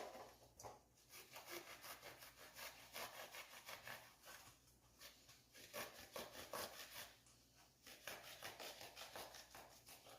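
Serrated bread knife sawing through foam rubber seat padding, faint repeated back-and-forth scraping strokes as the overhanging front lip is trimmed off.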